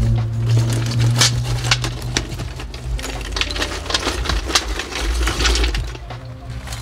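Pieces of charcoal clinking and scraping against each other and a metal bucket as they are handled: a busy run of sharp, irregular clicks, over background music with a steady bass.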